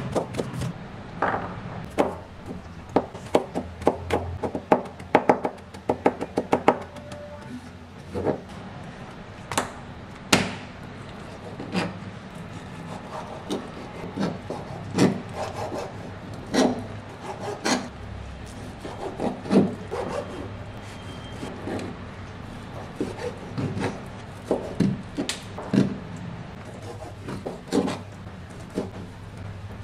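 Chef's knife knocking on a cutting board: quick runs of chopping as onion is finely diced at first, then slower, separate strokes as raw chicken breast is cut into bite-size pieces.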